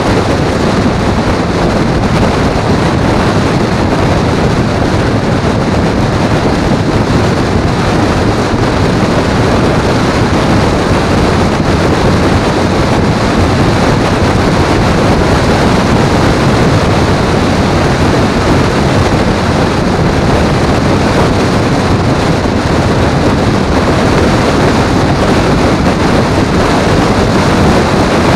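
Loud, steady wind and road noise from a vehicle travelling at highway speed, with wind rushing over the microphone.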